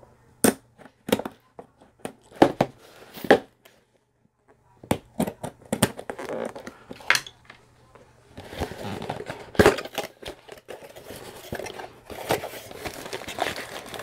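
Cardboard diamond-painting kit box being handled and opened by hand: a string of sharp taps and clicks as the box and its end flap are worked, then from about eight seconds in a denser crinkling of the packaging inside.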